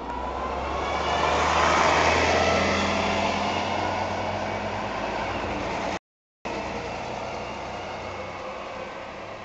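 SICCAR 177 city bus passing close by and pulling away: engine and tyre noise with a whine that shifts in pitch, loudest about two seconds in, then slowly fading into street traffic. The sound cuts out completely for a moment about six seconds in.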